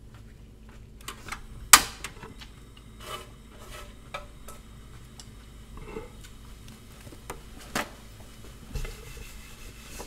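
Scattered clicks and light knocks of tableware and utensils being handled during a meal. The sharpest click comes about two seconds in and another near eight seconds.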